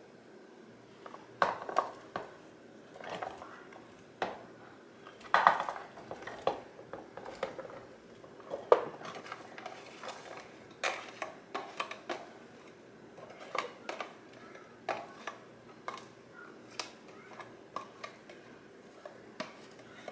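Diced potatoes being emptied from a plastic veggie-chopper container into a crockpot: irregular light knocks and clatters as the cubes drop in and the plastic container is shaken and handled.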